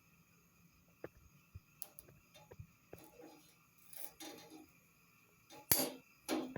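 Light clicks and clinks of kitchenware being handled, with two louder knocks near the end.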